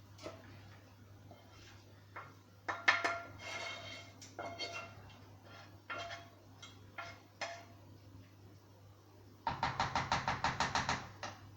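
Metal cooking utensils knocking and clinking against pots and pans. Near the end comes a quick run of about ten ringing taps.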